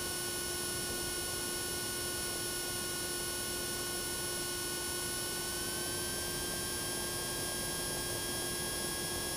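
Steady electrical hum and whine on the Cessna 172's cockpit intercom audio: several steady tones over a hiss. About six seconds in, the higher tones rise slightly in pitch.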